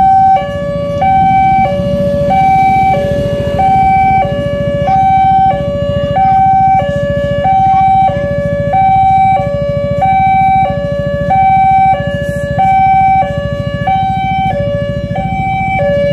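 Railway level-crossing warning alarm from the crossing's loudspeaker: an electronic two-tone sound, alternating evenly between a higher and a lower tone about once a second, warning of an approaching train. Low traffic noise runs underneath.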